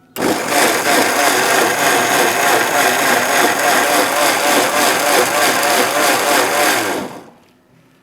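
Electric mixer grinder (mixie) grinding a wet masala paste of sautéed onion, tomato, coconut and water. The motor starts sharply, runs steadily and loud for about seven seconds, then is switched off and winds down.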